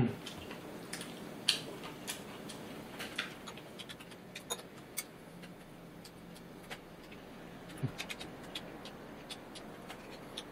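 Metal chopsticks picking food from a stainless steel bowl: scattered light clicks and taps, thickest in the first two seconds, then sparser.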